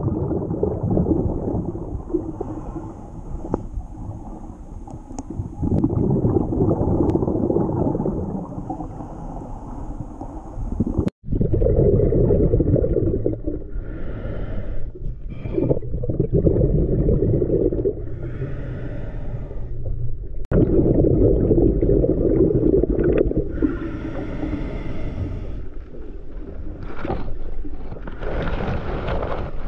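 Scuba diver breathing through a regulator underwater: bubbly rumbling exhalations alternating with a short hiss of inhalation every few seconds. The sound cuts out abruptly twice.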